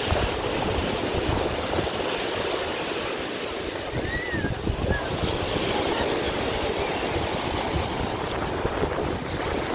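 Surf breaking on the shore in a steady wash, with wind buffeting the microphone. A short faint high squeak rises and falls about four seconds in.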